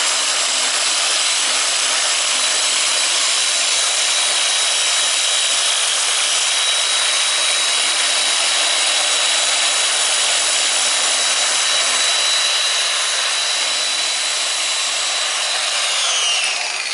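Dual-action orbital sander running steadily against a rusty sheet-metal motorcycle panel, a steady high whine over the sanding noise, scuffing off old paint and rust to prepare the part for paint. Near the end the sander is switched off and its whine falls as it spins down.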